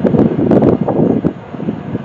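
Wind buffeting the microphone in loud, uneven gusts that ease off in the second half.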